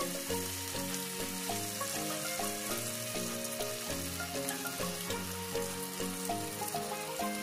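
Gravy sizzling as it is poured onto a hot sizzling plate of beef and vegetables: a steady frying hiss. Background music with a melody and a bass line plays over it.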